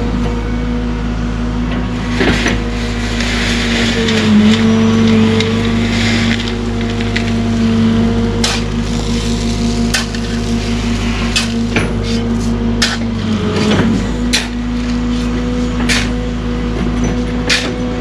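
New Cat excavator's diesel engine running steadily under digging load, its pitch sagging briefly twice as the hydraulics take load. Scattered sharp clicks and knocks ring out over the engine.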